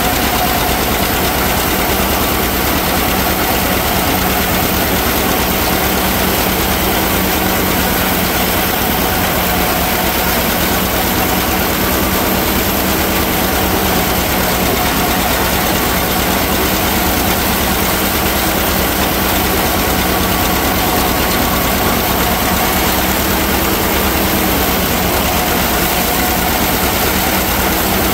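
Tractor engine running under steady load while it pulls and powers a one-row forage harvester chopping standing corn. The engine drone and the chopper's whirring cutterhead and blower blend into one loud, even sound that does not change.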